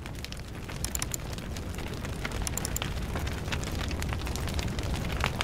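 Crackling fire sound effect: a steady low rumble of flames with many scattered sharp crackles and pops.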